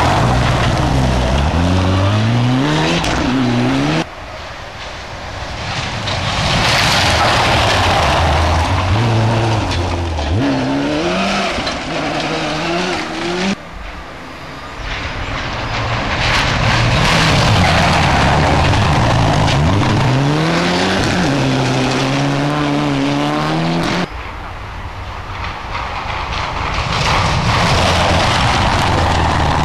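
Four-wheel-drive rally cars, Subaru Impreza and Mitsubishi Lancer Evolution types, revving hard through a tight gravel hairpin one after another. Engine pitch climbs and drops with throttle and gear changes over the hiss of gravel. Abrupt cuts about 4, 13 and 24 seconds in start a new car's pass.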